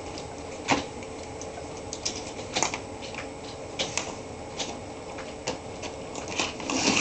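Scattered sharp plastic clicks and taps of a toy slot car being handled and knocked against its plastic track, at irregular intervals, with a faint steady hum underneath.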